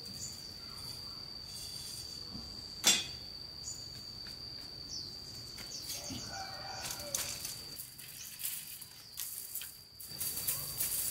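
Outdoor rural ambience: a steady high-pitched insect drone, with a single sharp knock about three seconds in and a few faint short chirps later on.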